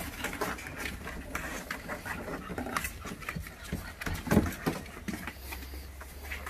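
Shar-pei puppies scrabbling about inside a cardboard box: claws scratching and paws tapping on the cardboard in a busy run of small clicks and knocks, with one louder knock about four and a half seconds in.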